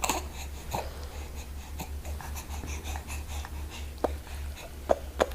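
A young baby's faint breathing with a few small mouth clicks, over a steady low hum.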